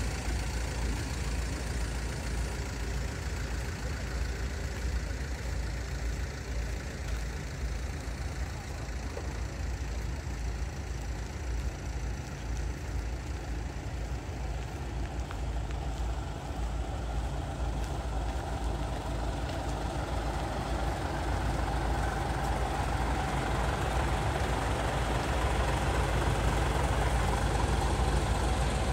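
Large truck engine running steadily with a deep rumble, getting gradually louder over the last third.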